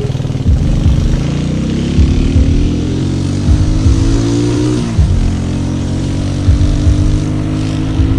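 Motorcycle engine pulling hard, its pitch rising for about four seconds, then dropping sharply about five seconds in as it shifts up and running steadily after. Wind and road noise rush past.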